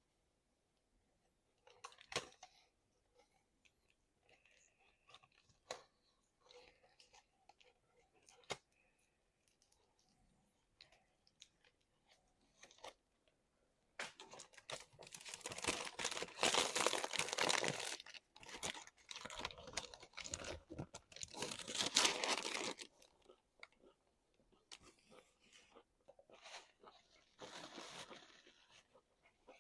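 Close-up eating sounds: soft chewing and scattered mouth clicks, then from about halfway a long, loud stretch of crunching and crinkling that lasts some nine seconds, with a shorter burst near the end.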